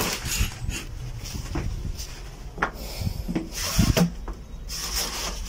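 Handling sounds: a cloth bag and fabric rustling and rubbing against a wooden crate, with several light knocks.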